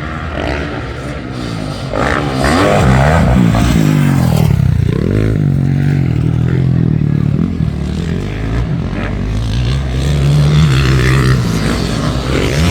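Motocross bike engines revving hard and easing off as riders go by on the track, the pitch rising and falling several times.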